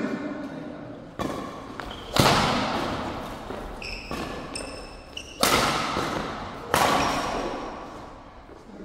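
Badminton rackets striking a shuttlecock during a doubles rally: several sharp hits, the loudest about 2, 5.5 and 7 seconds in, each ringing out in a large hall. Short squeaks of court shoes on the mat about four seconds in.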